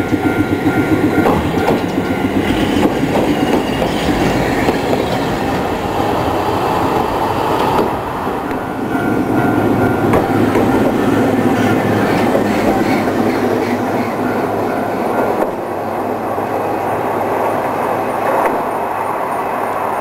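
Hankai Tramway streetcar rolling through a level crossing, its wheels clattering over the rail joints and crossing rails, while the crossing's warning alarm rings.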